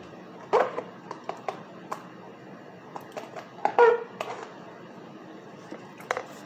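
Chewing a mouthful of cornstarch close to the microphone: scattered crunchy, squeaky bites and mouth clicks. The loudest come about half a second in and near four seconds, the later one with a short squeak. A brief knock near the end as the plastic cornstarch tub is picked up.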